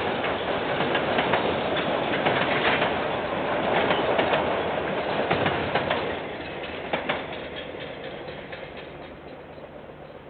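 KiwiRail train passing on the line, its wheels clicking over the rail joints, then fading away after about six seconds as it moves off.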